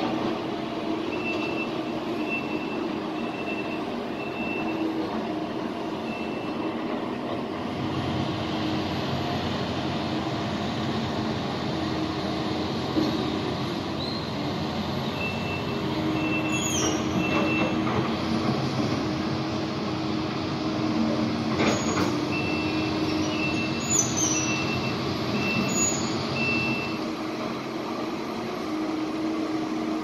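Heavy vehicle's diesel engine running while its reversing alarm beeps about twice a second, in several runs that stop and start again as the machine backs up. A few short high squeals come around the middle, with a sharp click between them.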